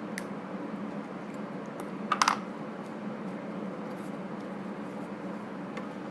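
Small clicks and taps, with a quick run of three or four louder, sharp clicks about two seconds in, over a steady low hum.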